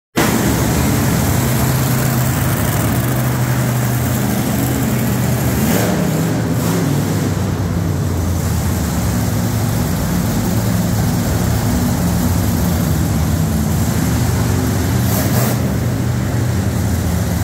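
Monster truck engine running at a steady low idle, with a deep even pitch that holds through.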